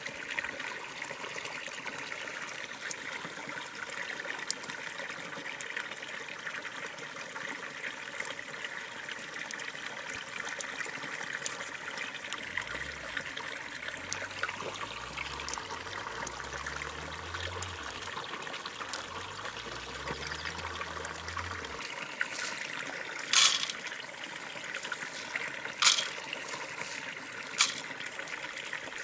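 A steady background hiss, with faint ticks of castor seeds being picked from dry ground. Near the end come three sharp, louder clicks as seeds are dropped into a clay pot.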